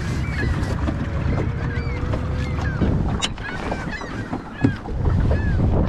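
A flock of birds calling, many short chirping calls overlapping, over a steady low rumble. A sharp click just past three seconds in and a brief thump shortly before the end.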